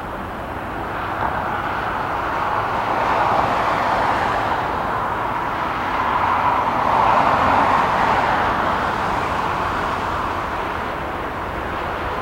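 Jet airliner engine noise from an aircraft taking off or landing: a loud, steady roar that grows about three seconds in, peaks again around seven seconds, then eases off.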